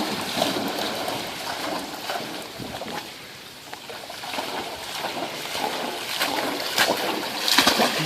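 A dog running and splashing through floodwater. The splashing fades about three seconds in, then grows louder again toward the end as the dog comes back.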